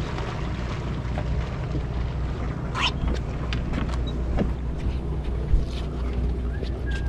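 Steady low hum of a sportfishing boat's machinery, with wind on the microphone and scattered clicks and knocks on deck. A short noisy burst comes near three seconds in, and a sharp knock comes about five and a half seconds in.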